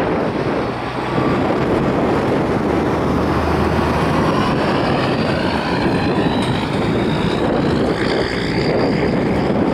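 Wind buffeting the microphone, loud and steady, with faint vehicle noise whose pitch slides in the second half.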